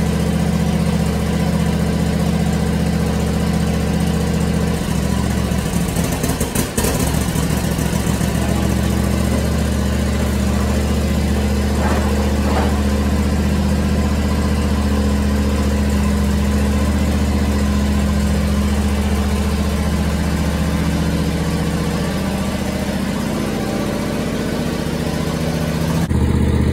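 John Deere riding lawn tractor engine running steadily, with a brief dip and a few clicks about six seconds in.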